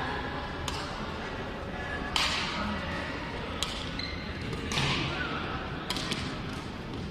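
Badminton racket strings hitting the shuttlecock in a rally: about five sharp smacks, roughly one every second and a half, some with a short echo.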